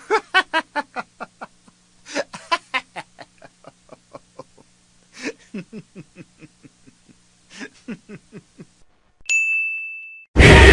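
Laughter sound effect: a person laughing in rapid bursts of short pulses, with pauses between the bursts. A little after nine seconds in comes a single short, bright ding. Loud music cuts in just at the end.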